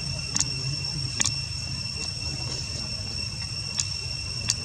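Insects droning at a steady high pitch over a low background rumble, with a few sharp clicks scattered through.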